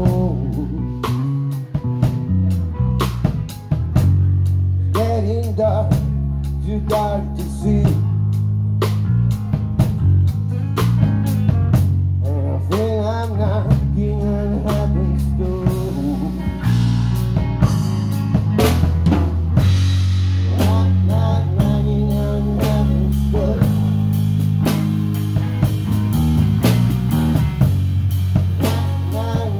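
Live band playing a blues-rock number: a drum kit keeps a steady beat with rim shots and bass drum under a bass line, while a lead melody with bent, wavering notes plays over it.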